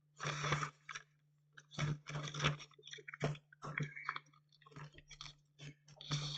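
Sheet of paper rustling and crinkling in short, irregular bursts as it is folded and creased by hand.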